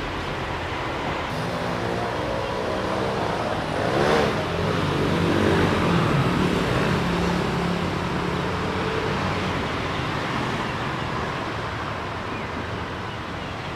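Road traffic: motor vehicles running past close by. The loudest passes by about four seconds in, and the engine noise stays up for a few seconds before easing off toward the end.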